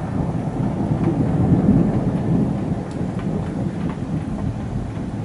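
Rolling thunder rumbling, swelling to its loudest about one and a half seconds in and then easing off, with rain falling and a few drops ticking.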